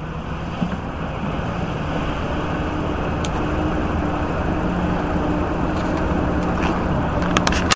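Steady engine drone with a low hum, slowly growing louder. A few sharp clicks come just before the end.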